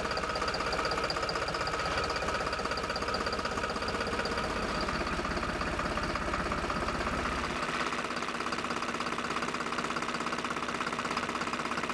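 New Holland 3630 tractor's three-cylinder diesel engine running at idle with a steady, fast clatter. Its deepest tone drops off a little about seven and a half seconds in.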